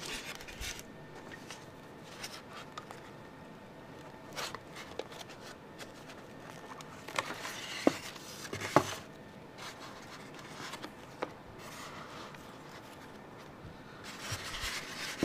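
Quiet handling of styrofoam packaging: the expanded-polystyrene box lid and foam wrap sheets are lifted and moved, giving light rubbing and rustling with a few sharp little knocks, the loudest about eight and nine seconds in.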